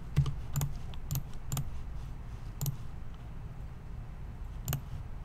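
Scattered, irregular clicks of a computer mouse and keyboard, about a dozen sharp separate clicks over a low steady hum.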